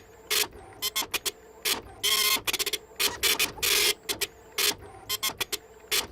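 Printer printing: a run of uneven bursts of buzzing mechanical noise, some quick and stuttering, some about half a second long, with short gaps between them and a faint steady hum underneath.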